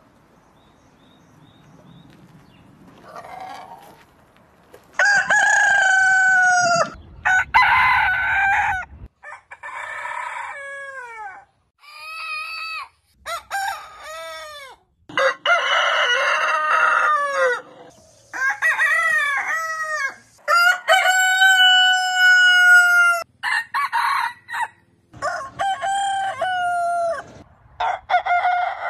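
Roosters crowing one crow after another, about a dozen cock-a-doodle-doos of a second or two each, from several different birds. The first few seconds are quiet before the crowing starts.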